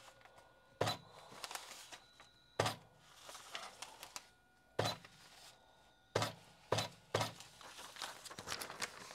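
Videojet 6530 thermal transfer overprinter making test prints on paper held under its printhead: about six sharp clacks at uneven intervals, with paper rustling between them.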